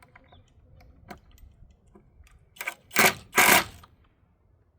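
Light clicks of metal door hardware being worked, then two short, loud rattling bursts about three seconds in.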